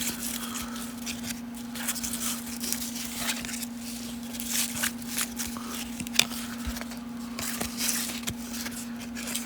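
1990 Upper Deck baseball cards being handled and flipped one by one, with short papery slides and light clicks at an uneven pace, over a steady low hum.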